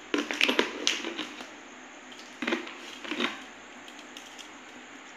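Clicks and clatter of steel bowls and plates being handled on the table while rice is mixed by hand. A cluster of clicks fills the first second and a half, followed by two short bursts about 2.5 and 3 seconds in.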